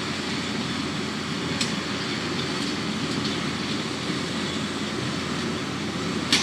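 John Deere 4040 six-cylinder diesel tractor running with a 338 small square baler working behind it: a steady mechanical clatter, with a sharp clack about one and a half seconds in and another near the end.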